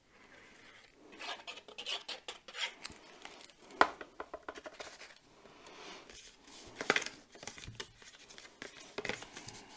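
Cardstock being handled, slid and pressed by hand on a cutting mat: irregular rustling and scraping with small clicks, and two sharper knocks.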